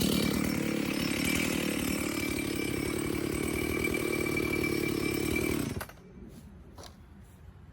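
A 64cc two-stroke chainsaw running steadily, then shut off about six seconds in, the engine sound stopping abruptly; two light clicks follow.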